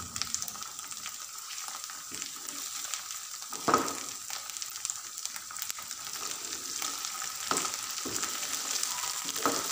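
Sarson ka saag sizzling in hot desi ghee with fried garlic and ginger in a non-stick frying pan, stirred with a spatula. The spatula scrapes and knocks against the pan a few times, loudest about four seconds in.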